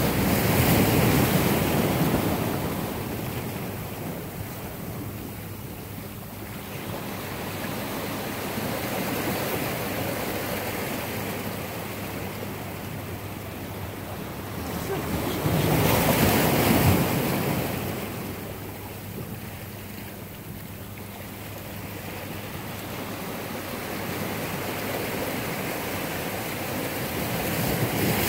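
Ocean surf breaking and washing over shoreline rocks, a steady rush that swells loud three times as waves come in: near the start, about halfway through, and at the end.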